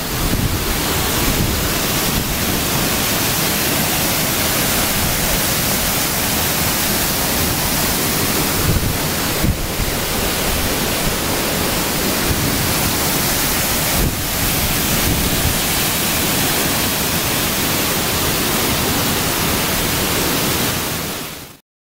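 Waterfall pouring over rocks, a loud steady rush of water that cuts off abruptly near the end.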